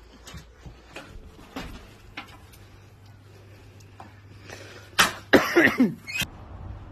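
Scattered light knocks and bumps, then about five seconds in a sharp knock followed by a loud, choppy burst of a person's coughing lasting about a second.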